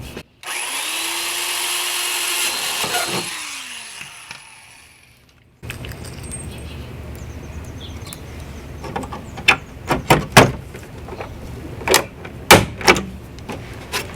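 Cordless drill running for a few seconds as a new hole is drilled in the metal trim, then spinning down with a falling pitch. Later, a handful of sharp clicks and knocks.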